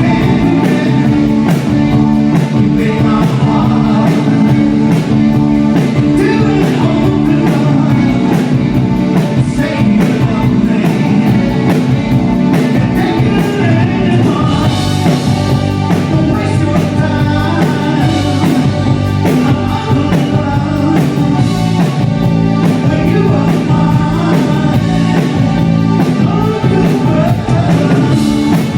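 Live rock band playing a song: a lead singer over electric guitar, keyboards and a steady drum beat.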